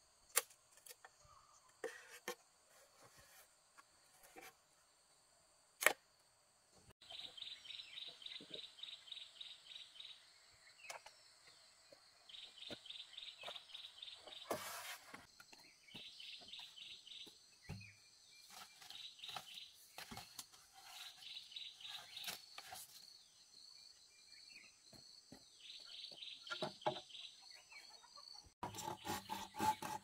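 Insects chirping in repeated trains of fast pulses, each train lasting two or three seconds, over a steady high-pitched whine, with scattered light clicks and knocks. Near the end a louder rasping, rubbing sound starts.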